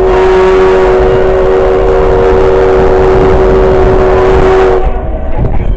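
Whistle of a 1920-built steam locomotive blowing one long, loud blast, a chord of several notes held steady, cutting off about five seconds in.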